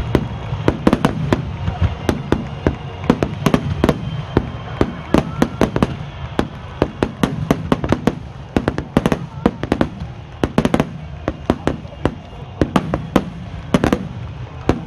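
A fireworks display: aerial shells bursting in rapid succession, several sharp bangs a second throughout, over a continuous low rumble of echoing detonations.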